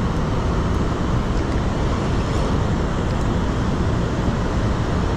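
Steady rushing noise from water pouring over a spillway, with wind on the microphone.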